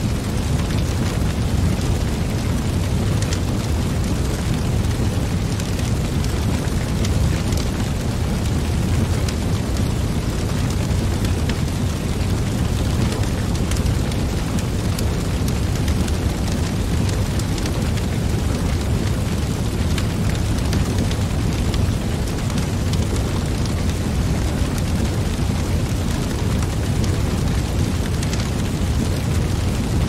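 Wood fire burning in a perforated metal fire pit: a steady low rumble of flames with frequent sharp crackles and pops from the burning logs.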